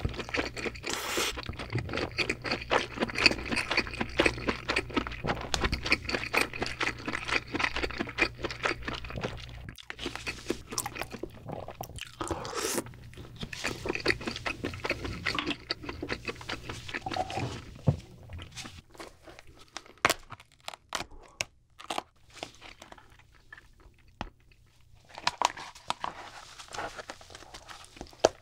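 Close-miked chewing of king crab meat for about the first ten seconds, followed by sparser sharp clicks and cracks of crab shell as meat is pulled from the legs and the body is broken apart.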